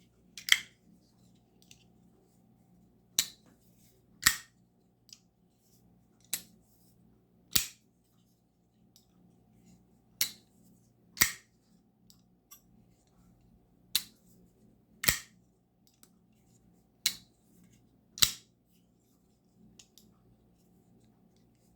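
Kizer Mini Roach pocket knife blade being flipped open and closed over and over: sharp metallic clicks in pairs about a second apart, the blade snapping open and then shut, repeated about every three seconds, six times in all.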